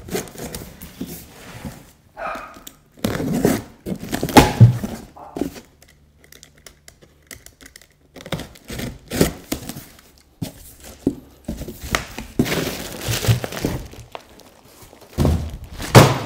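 A cardboard shipping box being opened: a box cutter slicing through packing tape, tape tearing, and cardboard flaps scraping and thudding in irregular bursts. Near the end, the plastic bag around the backpack crinkles as it is pulled out.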